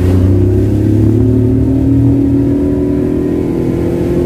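Car engine heard from inside the cabin, pulling as it accelerates. Its note rises a little over the first two seconds, then holds steady.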